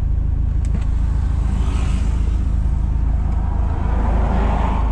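Steady low rumble of a Toyota HiAce van's diesel engine and tyre noise, heard from inside the cabin while driving. About four seconds in, a passing vehicle's noise swells as it draws alongside.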